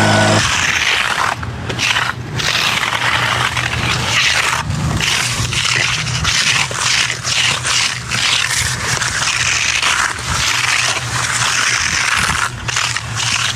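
Repeated scraping strokes of a concrete finishing tool across wet concrete, over a steady low engine hum.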